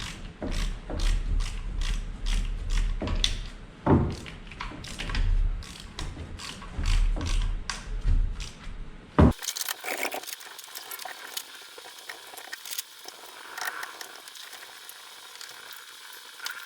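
Ratchet wrench clicking in short, rapid runs for about nine seconds, then stopping abruptly, leaving only a few soft scattered clicks of tool handling.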